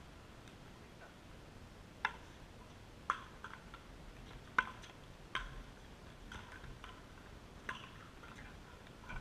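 Sharp hollow pocks of a plastic pickleball off paddles and the court surface: about five at irregular intervals, the loudest about halfway through, over faint outdoor background noise.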